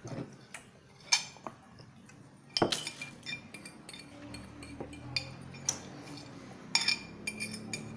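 A spoon clinking and scraping in a bowl, with drinking glasses clinking as they are picked up and put down. A string of sharp clinks, a few at first and more frequent in the second half.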